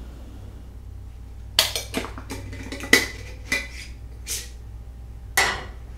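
About seven sharp, irregular taps and clinks, some ringing briefly like glass, as a small container is knocked and shaken to add shredded coconut to a glass parfait dish.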